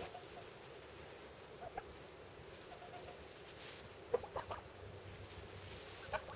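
White domestic goose working loose straw with its bill, the straw rustling, with a few short soft goose calls, most of them in a cluster about four seconds in.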